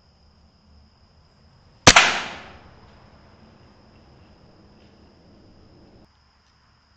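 Air rifle firing a single shot at a rat: one sharp crack about two seconds in, with a quick second crack right behind it, dying away within about half a second.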